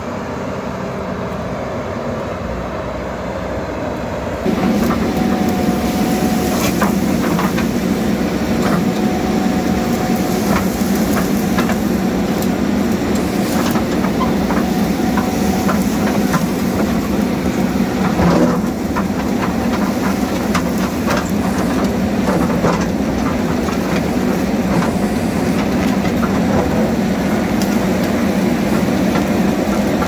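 JCB backhoe loader's diesel engine running steadily under load, with irregular knocks and scraping as the bucket digs into dirt and stones. The sound steps up suddenly about four and a half seconds in, becoming closer and louder.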